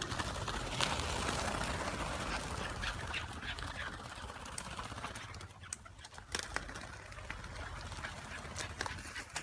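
Chukar partridges being released: a dense flutter of wings and bird calls for about the first five seconds, then scattered sharp clicks and knocks.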